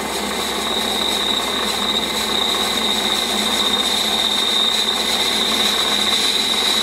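Warco metal lathe taking a finishing cut on a cast iron part: steady machining noise with a high, steady whine from the cutting tool that sets in as the cut starts.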